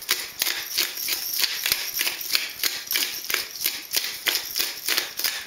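Hand-twisted pepper mill grinding peppercorns: a quick, even run of dry crunching clicks, about five or six a second.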